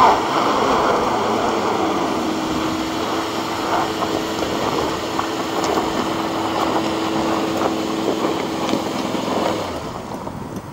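Volvo V70 XC driving under load through slush on a gravel road: tyres churning slush over a steady engine note. The engine eases off near the end.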